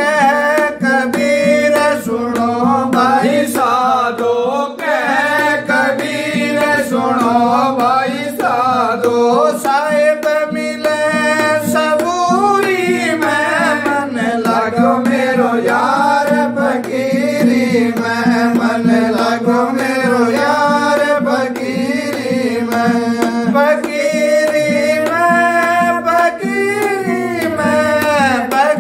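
A devotional shabad sung by a man over a steady drone, with a quick, even rhythm of plucked or struck accompaniment.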